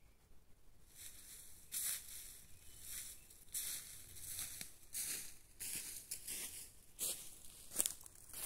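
Footsteps crunching through dry fallen leaves, about three steps every two seconds. They start about a second in and grow louder as the walker comes close.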